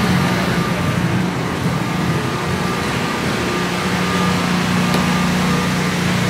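Steady low hum of an engine running, which grows stronger about four seconds in, over a constant background din.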